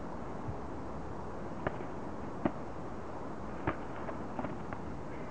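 Blows from boxing gloves and shin guards landing in a kickboxing exchange: a scattered handful of short, sharp slaps, the loudest about halfway through, over steady wind noise on the microphone.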